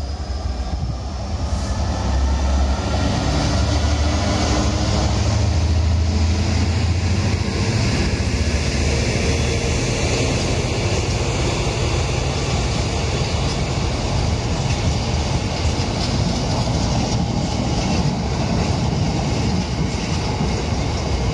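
A freight train of covered bogie hopper wagons passing close by. A deep steady hum fills the first several seconds, then the wagons' wheels give a continuous rumble and clatter on the rails.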